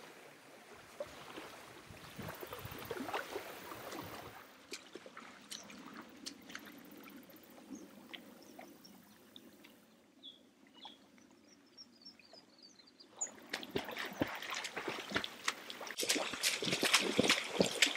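Quiet lakeshore water with a few faint high chirps, then, from about three-quarters of the way through, splashing steps of a person wading out of shallow lake water, growing louder.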